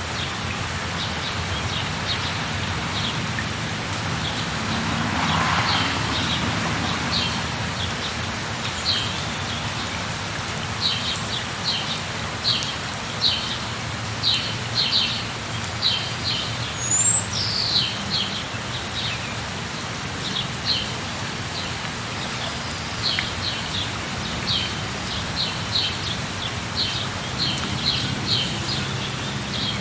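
Steady rain falling, with a songbird calling over it in quick runs of short, high chirps, sparse at first and almost continuous in the second half. About five seconds in, a soft swell of lower noise rises and fades.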